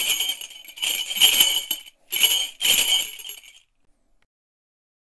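Small bells jingling in three shaken bursts of about a second each, stopping about three and a half seconds in.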